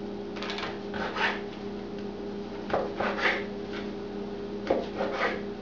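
Chef's knife sawing through a rolled phyllo-pastry log and onto a wooden cutting board: three cuts, each made with two quick back-and-forth strokes, about two seconds apart. A steady low hum runs underneath.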